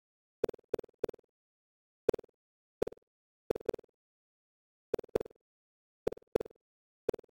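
Computer-generated bounce sounds for animated boxes in a surround sound test: about a dozen short, sharp taps at irregular intervals, several in quick pairs, with dead silence between.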